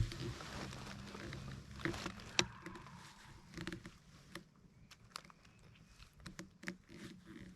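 Scattered clicks, taps and rustling, busier and louder in the first half and sparser after about four seconds: handling noise of a shotgun carrying a gun-mounted camera.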